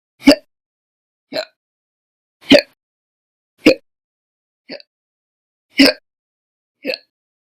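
A person hiccupping: seven sharp hiccups in a row, about one a second, some loud and some noticeably softer.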